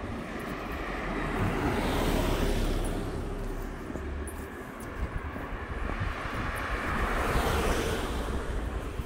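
Street traffic: two road vehicles pass one after the other, their tyre and engine noise swelling and fading, the first about two seconds in and the second about seven seconds in.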